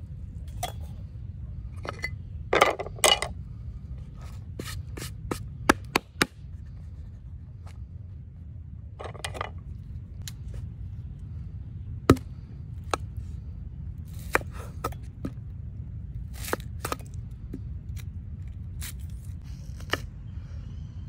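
Irregular clicks, knocks and short scrapes of cooking utensils and ingredients being handled during food preparation, over a steady low background rumble. The loudest scrapes come about two and a half to three seconds in, with a single sharp click about twelve seconds in.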